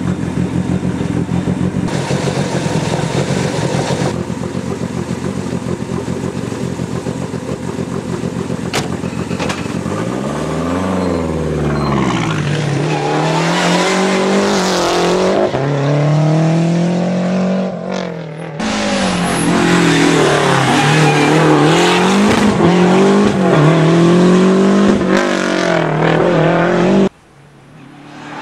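Lancia Delta Integrale rally car's turbocharged four-cylinder engine running with a steady rumble, then pulling away hard about ten seconds in, its note rising and falling again and again as it accelerates through the gears. The sound cuts off abruptly near the end.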